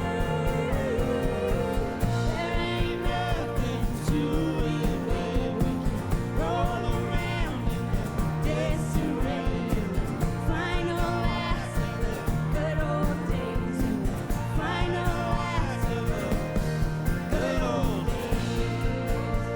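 A live band playing a country-tinged indie rock song, with a steady drum beat under a wavering lead melody that comes in phrases of about two seconds.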